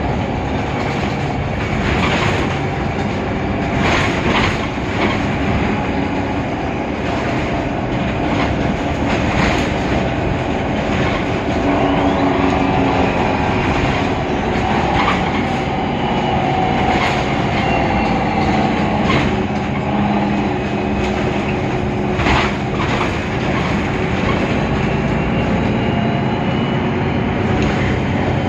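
Mercedes-Benz Citaro O530 Ü city bus running in service: its OM 906 hLA six-cylinder diesel and Voith DIWA automatic gearbox drone steadily with shifting tones, under road noise, with scattered knocks and rattles and a faint thin high whine through the middle.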